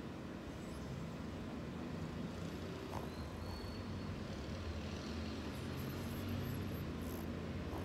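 Shih Tzu dog snoring: a low, steady snore that swells and fades with its breathing.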